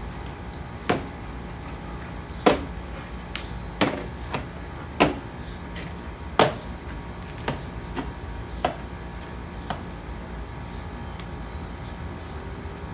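Irregular knocks and clinks of metal parts and hand tools being handled during a hydraulic pump teardown, about a dozen over the first ten seconds, some ringing briefly. A steady low hum runs underneath.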